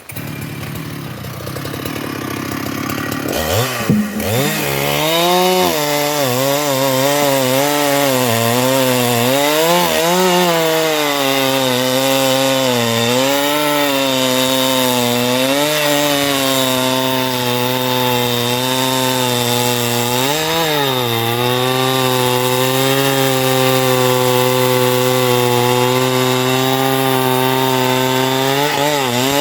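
Husqvarna two-stroke chainsaw running loud at high revs, its pitch sweeping up a few seconds in, then dipping and recovering again and again as the chain cuts into sengon (albizia) wood.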